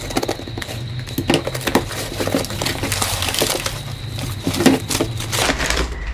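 Packaging being opened and rummaged through: irregular crinkling and rustling with scattered clicks and light knocks.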